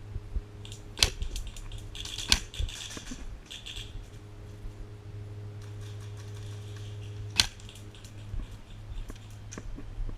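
Scattered airsoft gunfire: three sharp single cracks, about a second in, a second later and near the end, with rustling and light clattering between them.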